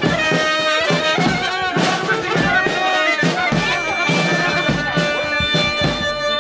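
Traditional folk dance music led by a reedy wind instrument playing an ornamented melody over a full accompaniment.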